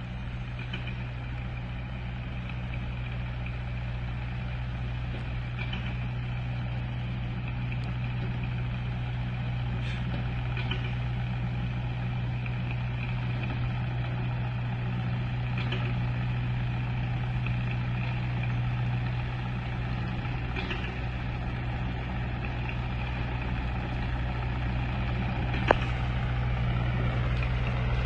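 A vehicle engine running steadily with a low hum, growing slowly louder, with a single sharp click near the end.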